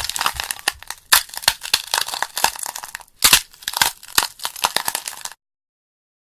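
Irregular crackling and crunching, a dense run of sharp clicks like something being torn or crumpled, cutting off abruptly about five seconds in.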